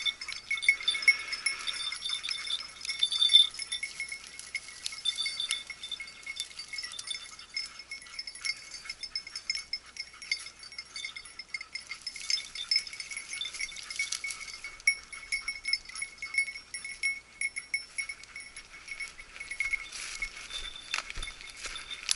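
A hunting dog's collar bell jingling with constant irregular shaking as the dog moves through the brush.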